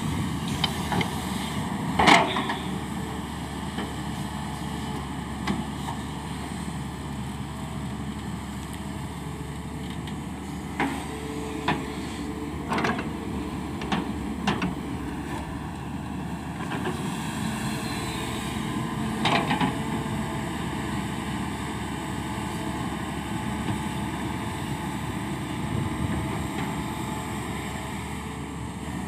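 Hyundai crawler excavator's diesel engine running steadily under load as it digs and swings earth into a tipper truck, with a few sharp knocks and clanks, the loudest about two seconds in, from the bucket and the earth dropping into the steel truck body.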